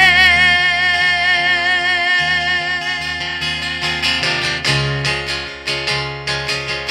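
Live acoustic pop performance: a woman's voice holds one long note with vibrato over a strummed acoustic guitar. The voice stops about three seconds in, and the guitar strumming carries on alone in a steady rhythm.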